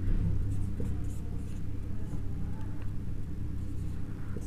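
Marker pen on a whiteboard, writing digits in short scratchy strokes, over a steady low hum.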